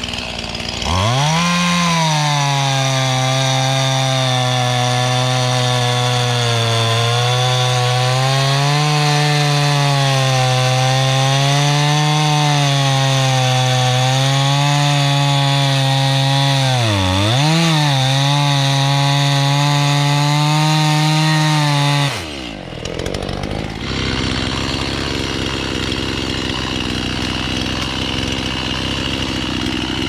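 Two-stroke chainsaw held at full throttle cutting through a hedge stem near its base, its pitch wavering as the chain bites, with one brief drop in revs and recovery about two-thirds of the way through. About 22 seconds in the throttle is let off, the revs fall away sharply, and the saw runs on at a lower, rougher sound.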